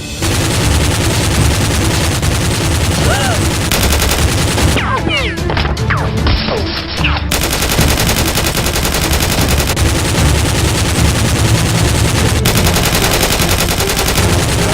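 Sustained rapid automatic gunfire, a dense unbroken run of shots like machine-gun sound effects laid over a staged firefight.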